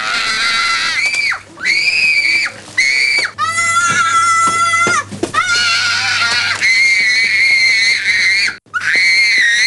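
A small child screaming in a tantrum: a string of long, high screams, each held for a second or more, with short breaks for breath between them.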